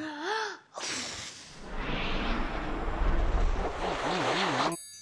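Cartoon magic sound effect: a brief wobbling warble, then a long rushing whoosh with a deep rumble and warbling tones near the end. It cuts off suddenly near the end into a ring of twinkling chimes, the magic that brings in a pencil sharpener.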